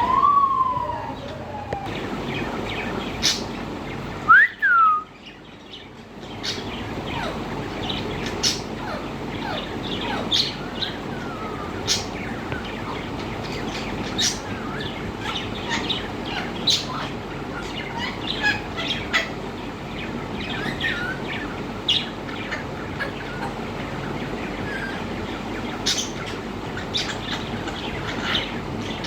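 Parrot whistling: a whistle that rises and falls at the start, and a loud falling whistle about four seconds in. Many short, sharp chirps follow over a steady background hiss.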